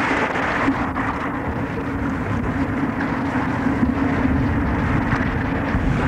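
Steady rush of fast-flowing river water through white-water rapids or a spillway, with a steady low hum running through it.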